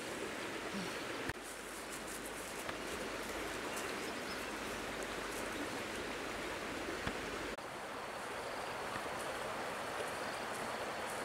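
Steady rushing outdoor background noise, like running water, with no distinct events; its character changes abruptly about a second in and again about two-thirds of the way through.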